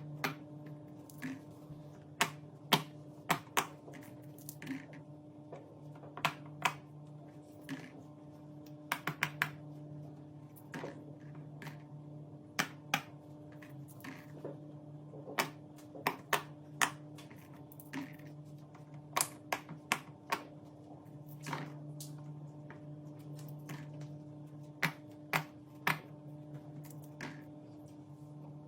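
Irregular sharp clicks and taps from hands working small objects, sometimes in quick runs of two to four, over a steady low hum.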